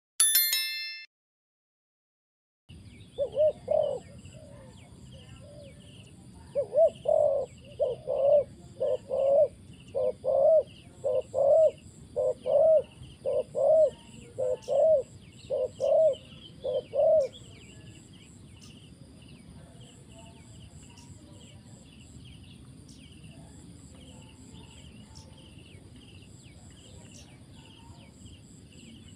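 A brief bright chime sound effect opens, then a spotted dove coos in a long series, about one coo a second, stopping about two-thirds of the way through. Insects trill steadily underneath.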